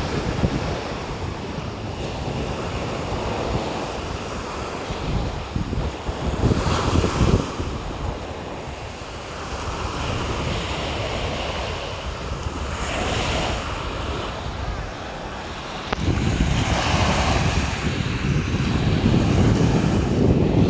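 Small sea waves breaking and washing up a sandy shore, swelling and easing every few seconds, with wind buffeting the microphone. The wind rumble grows louder about three-quarters of the way through.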